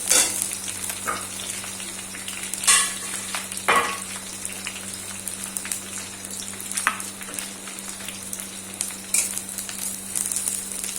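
Sliced onions sizzling in hot oil in a pan as they fry to a reddish-brown, stirred with a spoon that scrapes against the pan a few times.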